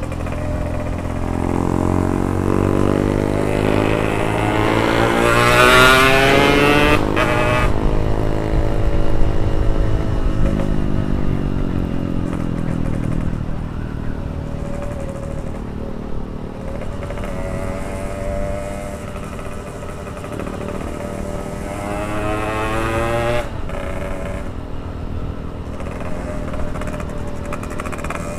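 Yamaha RX King's two-stroke single-cylinder engine heard while riding: it revs up in a rising pitch for several seconds and drops sharply at a gear change about seven seconds in, runs steadily for a while, then revs up again and drops at another shift a few seconds before the end.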